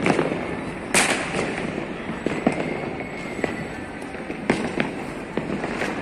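Fireworks and firecrackers going off all around: a continual crackle of many distant bangs, with louder sharp bangs at the start, about a second in, and twice near the end.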